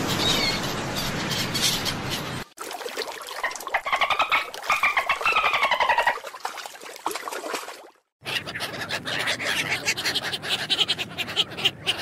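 A sequence of animal sounds: first gulls calling over a steady hiss. About two and a half seconds in, dolphins underwater take over, with trains of clicks and whistles that rise and fall. After a brief gap about eight seconds in, a mallard hen and her ducklings call in quick, repeated notes.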